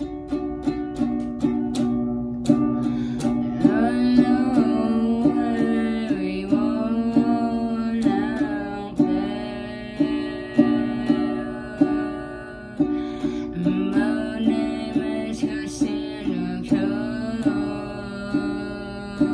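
Plucked acoustic string instrument strummed in a steady rhythm of chords, with a voice singing a melody over it from about three and a half seconds in.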